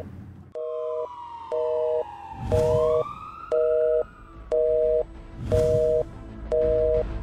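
Telephone busy signal: a two-tone beep repeating about once a second, half a second on and half a second off, the sign that the line is engaged. A siren-like tone glides down and then up during the first few seconds, and two whooshes swell about 2.5 and 5.5 seconds in.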